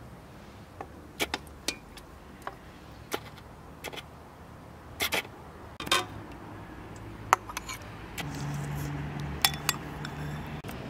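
Metal ladle and spoon clinking against an aluminium soup pot and china bowls: a series of separate sharp clinks. A faint low hum comes in about eight seconds in.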